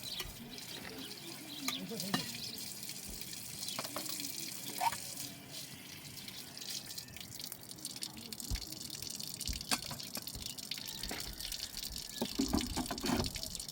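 Water trickling and dripping: a steady hiss with scattered individual drips.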